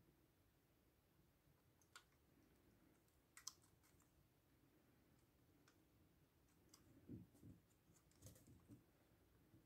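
Near silence, with a few faint clicks and light rubs from a model diesel locomotive being turned over in the hands, most of them in a small cluster near the end.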